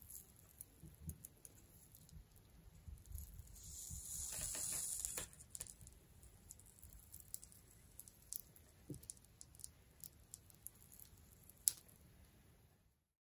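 Soldering on copper Heliax coax: faint scattered clicks and ticks of solder wire and the iron against the corrugated copper, with a soft hiss for about a second, some four seconds in, as the solder melts.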